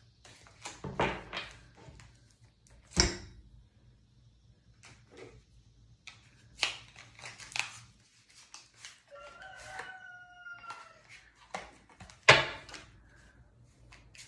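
A deck of tarot cards being shuffled by hand: a series of crisp card snaps and riffles, with two sharper slaps of the cards about three seconds and twelve seconds in. A rooster crows once about ten seconds in, its call falling slightly in pitch.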